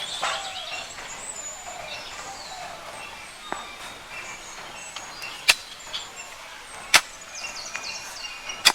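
Outdoor background with a few high chirps, and three sharp knocks about a second and a half apart in the second half.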